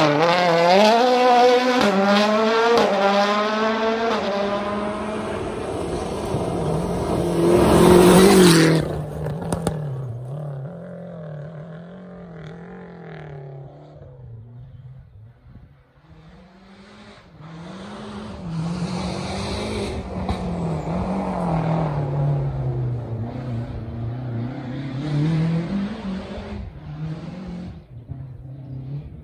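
Rally cars at full throttle: a Toyota Yaris WRC's engine revving up and down through gear changes as it passes close, loudest about eight seconds in, then fading; after a lull, another rally car is heard revving hard through its gears on a gravel road.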